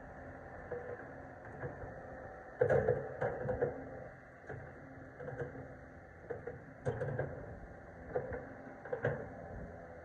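Doosan DH150LC-7 crawler excavator running with a steady low engine hum, with irregular knocks and clanks over it, the loudest cluster about three seconds in.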